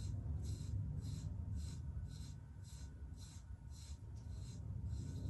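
Rhythmic grooming strokes through a shedding Shiba Inu's thick coat, a scratchy swish about twice a second.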